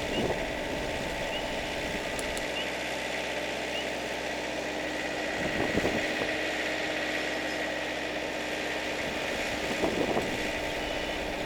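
Tafe tractor's diesel engine running steadily at idle, with two brief swells in loudness, about six and ten seconds in.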